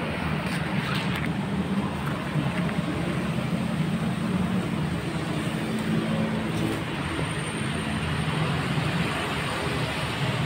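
Steady low rumble of road traffic, with no marked start or stop.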